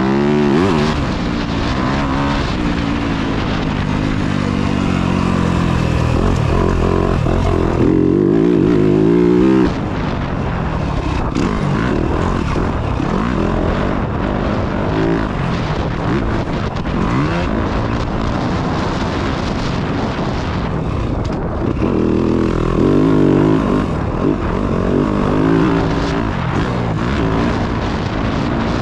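Yamaha dirt bike engine being ridden hard, its pitch rising and falling over and over as the rider accelerates, shifts and backs off the throttle.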